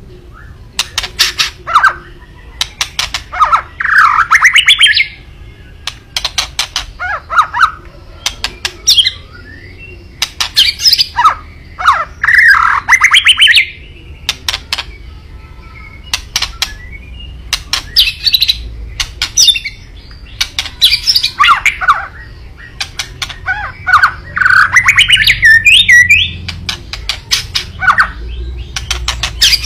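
White-rumped shama (murai batu) giving its harsh 'kretekan' call: quick runs of dry clicking rattles alternating with squawky phrases that swoop up and down, repeated in bouts every couple of seconds. This is the agitated call used as a provocation to stir other shamas.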